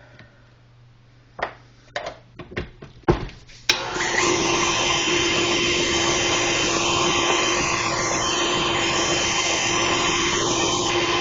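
An electric stand mixer is switched on about three and a half seconds in and runs steadily, its paddle beating pumpkin cake batter. Before it starts there are a few sharp knocks.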